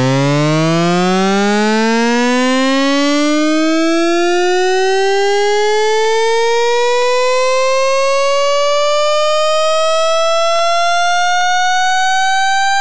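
Pitch riser from Ableton Live's Operator synth: one synthesized tone gliding steadily upward in pitch, rising quickly at first and then more slowly. The other oscillators are mixed in with a slight detune.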